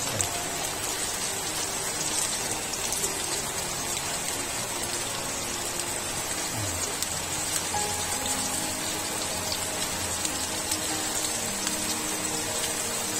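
Rice-flour-coated small fish shallow-frying in oil on an iron tawa, sizzling with a steady, dense crackle.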